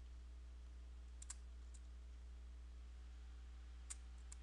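Computer mouse clicking a few times: a quick pair about a second in, one shortly after, and two more near the end, over a faint steady low hum.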